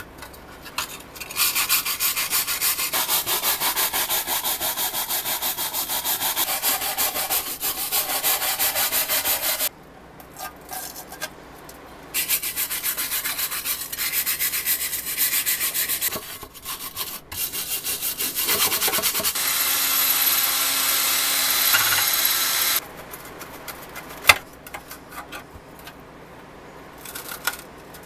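Rusty pressed-steel toy parts being hand-sanded with a sanding block: quick back-and-forth scraping strokes in long runs, with breaks about ten and sixteen seconds in. The sanding stops a few seconds before the end and gives way to quieter handling, with one sharp click.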